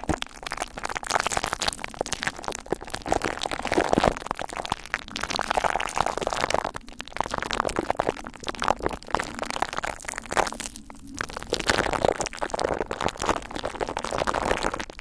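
A glue stick handled close to the microphone, giving a dense run of small crackles and clicks, with short pauses about seven and eleven seconds in.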